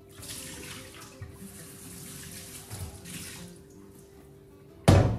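Water running from a kitchen tap into a stainless steel sink for about three and a half seconds, then stopping. Near the end comes a single loud thump.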